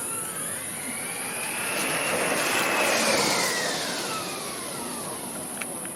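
Student-built electric Formula race car driving past, its electric motor whining. The whine rises in pitch as the car approaches, is loudest about three seconds in, and falls away as it moves off.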